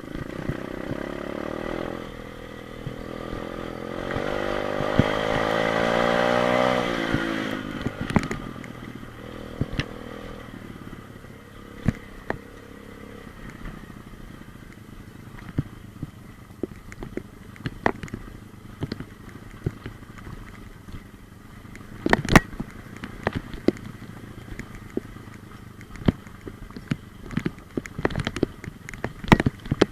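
A 125 cc pit bike's single-cylinder engine revs up, climbing in pitch for a few seconds, then drops back about a quarter of the way in and runs low. Many sharp clicks and knocks sound over it.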